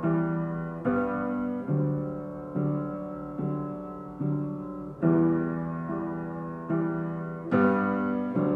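Background music: slow piano chords, a new chord struck a little under once a second and left to ring and fade.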